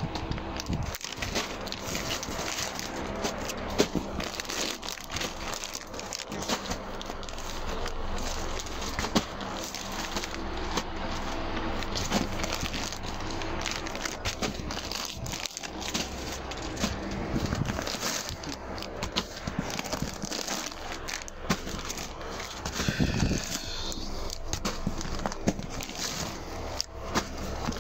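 Plastic clothing packets crinkling and crackling as they are handled and shuffled in a cardboard box, a steady run of small crackles and rustles.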